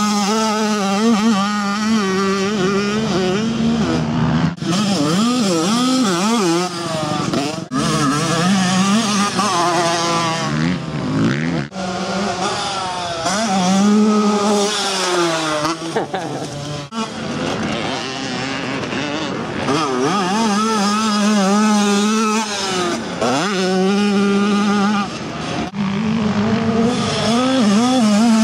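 Two-stroke motocross bike engines revving hard, the pitch rising and falling as riders work the throttle and shift, with abrupt jumps in the sound every few seconds where one clip cuts to the next.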